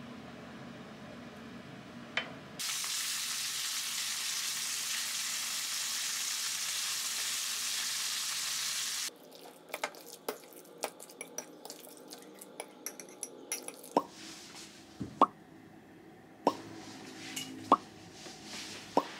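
Food sizzling as it goes into hot oil in a frying pan for a meunière, a steady loud hiss that starts a few seconds in and breaks off abruptly. Then a spoon clicks and taps against a glass bowl while mashing boiled eggs, with a few sharper clinks near the end.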